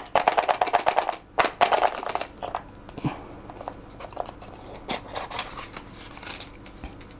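Cardboard box being handled and opened: a rapid scraping rub of the box sliding out of its sleeve for about the first second, then a few light knocks and taps of cardboard and contents.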